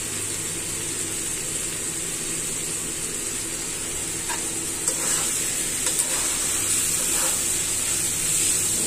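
A potol, brinjal and egg chorchori, cooked down dry, sizzling steadily in a kadai on the stove. From about four seconds in, a few short scrapes of a metal spatula against the pan.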